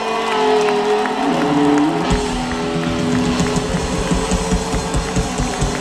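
Live rock band playing, with held electric guitar notes; about two seconds in, the drums come in with a fast, steady beat.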